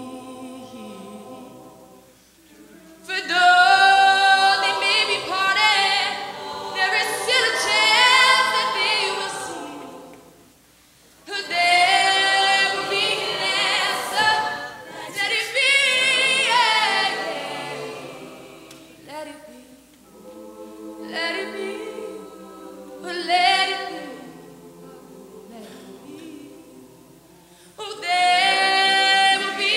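Mixed show choir singing a cappella, with a female soloist on a handheld microphone leading over the ensemble. The singing swells to loud full phrases, drops back to a quieter passage about two-thirds of the way through, and builds again near the end.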